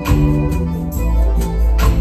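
Band music with a heavy bass line and drum hits.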